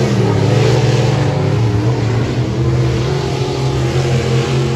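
Dirt-track race car engines running on the oval, a steady, loud mix of engine notes that rise and fall a little as the cars go through the turns.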